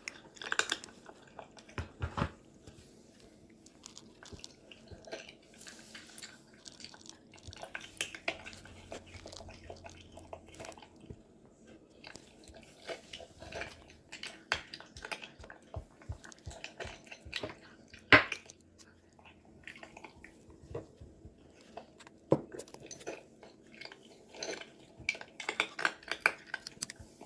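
Cat chewing dry kibble: irregular crisp crunches and clicks, with the loudest single crunch about 18 seconds in.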